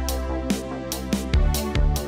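Electronic background music with a steady drum beat and heavy bass.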